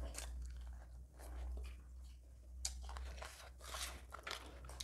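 Close-up eating sounds: chewing and crunching of rice and chicken curry eaten by hand, with irregular sharp crackles, over a steady low hum.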